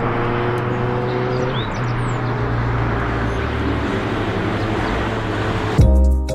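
Steady running noise of a car on the move, an even hiss with a low hum under it. Music comes in loudly near the end.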